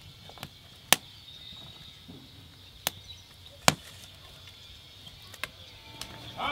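Small wood campfire crackling: a handful of sharp, separate pops from the burning twigs and wood, a second or more apart, the loudest about a second in and a little past the middle, over a faint steady hiss.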